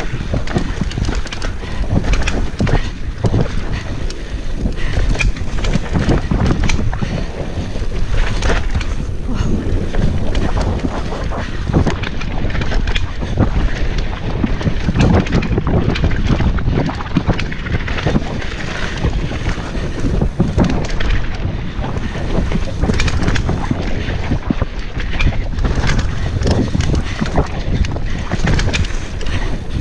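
Wind buffeting the microphone over the running rumble and rattle of a Specialized Demo 8 downhill mountain bike ridden fast down dirt singletrack, with frequent short knocks and clatters as it hits roots and bumps.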